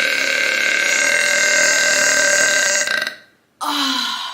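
A woman's long, loud, steady burp, brought on by chugging seltzer, that cuts off about three seconds in. It is followed near the end by a shorter burp that falls in pitch.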